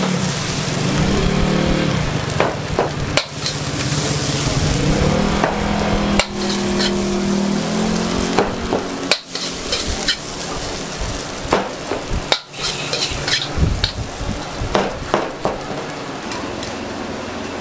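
Fried rice being stir-fried in a wok: steady sizzling over high heat, with a metal spatula scraping and clanking irregularly against the pan.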